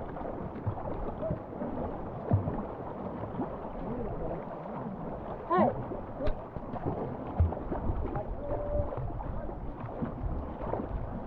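Canoe paddles pulling through choppy river water, with steady splashing, a few dull thumps and wind buffeting the microphone.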